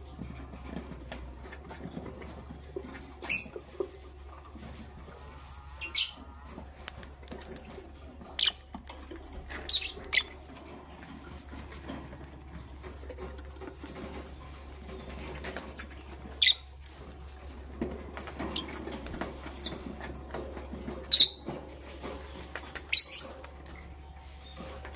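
Lovebirds giving short, sharp, high-pitched chirps, scattered a few seconds apart and sometimes two in quick succession, over a faint continuous rustling.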